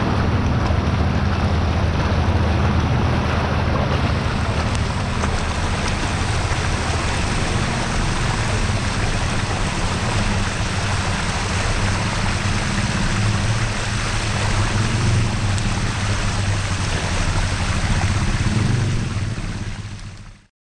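Bicycle tyres ploughing through floodwater: a steady rush and splash of water, with wind rumbling on the microphone. It fades out near the end.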